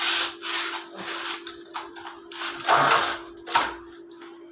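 Hands kneading soft wheat-flour dough in a parat: irregular squelching presses and slaps, the loudest a few bursts around three seconds in. A steady low hum runs underneath.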